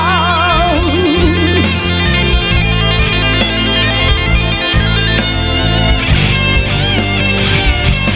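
Rock band instrumental break: electric guitar over a drum kit keeping a steady beat, with the singer's last held note, sung with vibrato, fading out in the first second.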